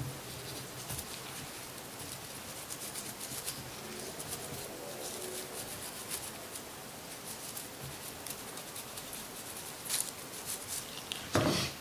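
Toothbrush bristles scrubbing a solvent-wet AR-15 bolt: a faint, quick scratching of short brush strokes. Near the end there is a brief, louder sound.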